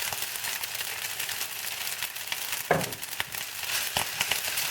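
Stir-fried spaghetti with bacon and egg sizzling softly in a frying pan, with a few sharp knocks, the loudest just past the middle.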